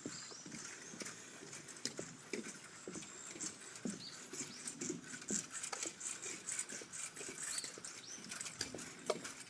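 Footsteps walking at a steady pace across a suspension footbridge deck, about two steps a second, over a faint steady high-pitched hiss.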